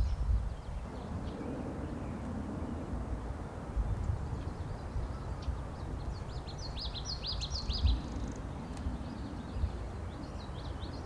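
A songbird singing in outdoor ambience, in repeated runs of quick, high, sliding notes: one run about halfway through and another near the end, over a steady low rumble.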